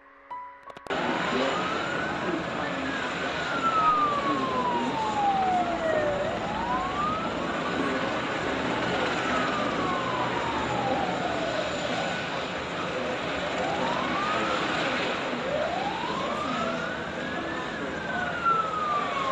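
An emergency vehicle's siren wailing in slow rising-and-falling sweeps, each about four to five seconds long, over a steady haze of city street noise. It comes in about a second in, after a brief gap.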